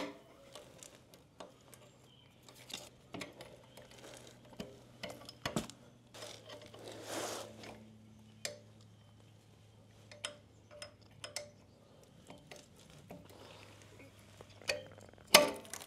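Scattered metallic clicks and clinks from a hooked spring puller working the heavy spring off a motorcycle's kickstand, with a brief scrape about halfway through and a sharper, louder click near the end. A faint steady hum sits underneath.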